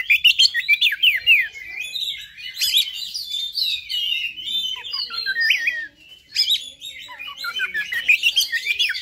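Oriental magpie-robin (kacer) singing an aggressive fighting song: a dense, fast run of short whistles and quick falling sweeps. It breaks off briefly about six seconds in, then starts again.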